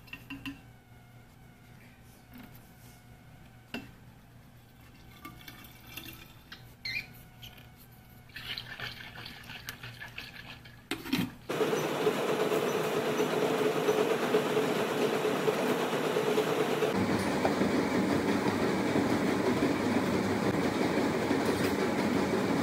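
A few faint clicks of a scoop against a metal water bottle and a plastic tub as powder is spooned in. About halfway through, a stair-climber machine's revolving steps start a loud, steady mechanical rumble, which carries on to the end.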